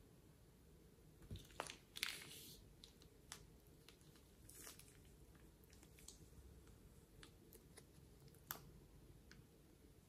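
Faint crinkling of a plastic piping bag and soft squelches of slime being squeezed out of it. A few sharp crackles come at irregular moments, the loudest about two seconds in.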